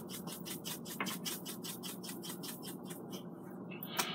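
Black pepper grinder being turned: a fast, even run of grinding clicks, about seven a second, that stops about three and a half seconds in.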